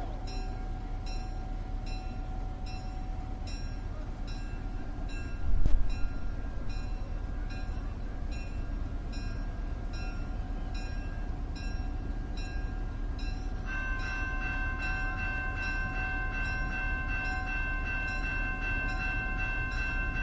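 Railroad crossing bell striking steadily about twice a second over the low, steady running of a diesel locomotive. A short loud thump comes about five and a half seconds in, and the bell's ring grows louder about two-thirds of the way through.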